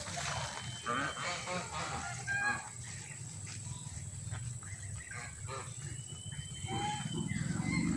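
A flock of white domestic geese calling: short honks, several in the first two or three seconds and a few more near the end, over a steady low rumble.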